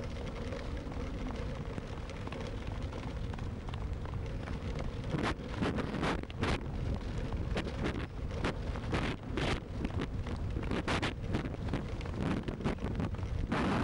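Wind buffeting the microphone over the steady rumble of a wheeled dog-racing rig rolling fast along a dirt track. From about five seconds in, many sharp rattles and knocks come from the rig jolting over the surface.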